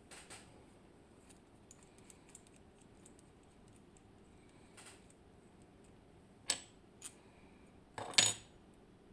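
Small metal parts of a BiLock camlock clicking and clinking as the lock is taken apart by hand: faint scattered ticks, two sharp clicks, then a louder short metallic clatter near the end.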